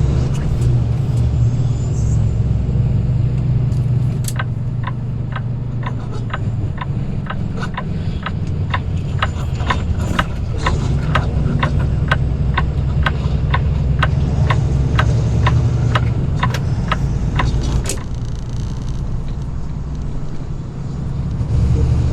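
Diesel semi truck engine running steadily, heard from inside the cab, with the turn signal clicking about twice a second from about four seconds in until it stops near the end.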